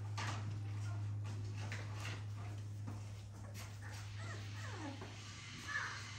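Four-week-old XL pit bull (American bully) puppy whimpering, a few falling cries about four seconds in and a sharper one near the end, while being handled for oral deworming.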